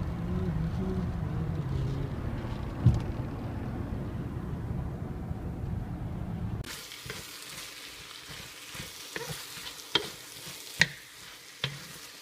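Steady low rumble of a moving car heard from inside the cabin, with one sharp knock about three seconds in. About halfway through it cuts to food sizzling in a pan while being stir-fried, with scattered clicks and scrapes of the spatula.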